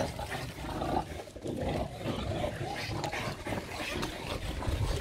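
A French bulldog and an English bulldog breathing noisily and grunting as they chase soap bubbles, in short irregular bursts.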